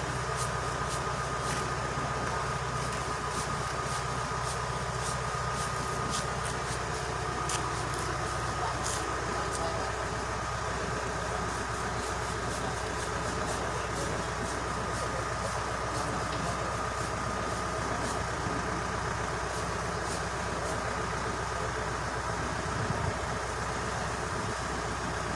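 An engine running steadily at idle, with no change in speed, and faint scattered clicks over it.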